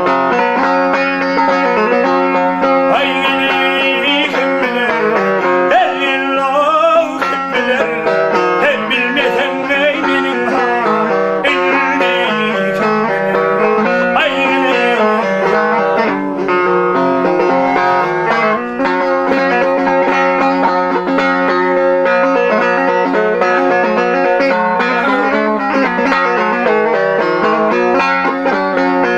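Turkmen dutar strummed rapidly over a steady low drone, with a man singing along in stretches.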